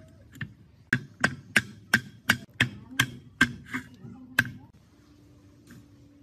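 A hammer tapping the end of a shaft to drive it into the cast-iron frame of an overlock sewing machine: about a dozen sharp taps, roughly three a second, stopping about four and a half seconds in.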